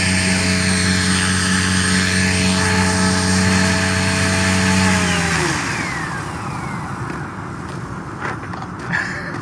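MSH Protos electric RC helicopter on the ground, its stock motor and rotor head running at a steady pitch, then spooling down with a falling whine about five seconds in.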